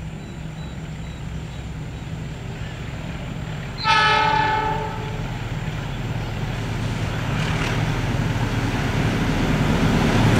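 Diesel locomotive of a passenger train sounding one horn blast about a second long, about four seconds in. Then the rumble of its engine and wheels on the rails grows louder as the train approaches.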